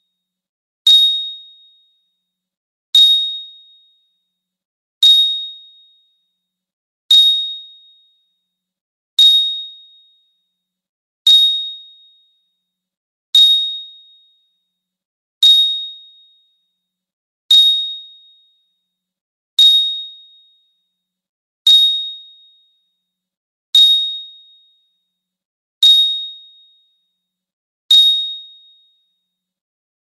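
A 'bling' sound effect: a bright, high-pitched ding that rings out and fades over about a second, repeated identically 14 times, about every two seconds.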